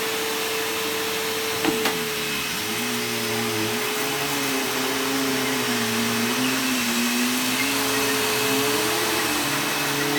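Bissell bagless upright vacuum cleaner running on carpet: a steady motor whine over a lower tone that wavers up and down, with a single click about two seconds in.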